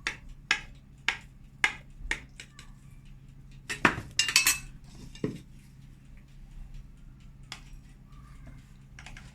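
Utensils clinking and tapping against a baking dish as a potato gratin is cut and portioned: sharp taps about twice a second, a louder burst of clinks about four seconds in, then a few scattered taps.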